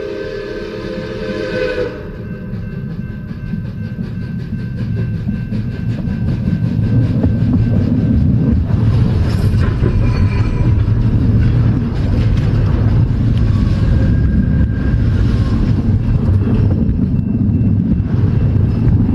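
Steam locomotive whistle sounding a chord of several tones, cutting off about two seconds in. It is followed by the locomotive's running noise and rapid exhaust beat, growing louder over the next few seconds and then holding steady.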